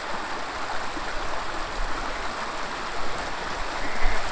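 Creek water running steadily over rocks in a shallow riffle, with a low rumble coming in near the end.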